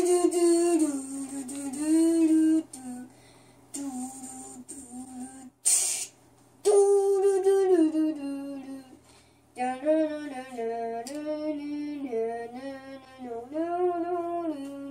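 A young boy singing his own melody, holding notes that slide and step in pitch, in phrases with short pauses between them. There is a brief rush of noise about six seconds in.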